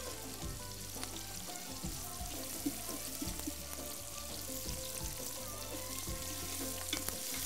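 Sliced onions sizzling steadily as they fry in a large aluminium pot, stirred with a wooden spoon.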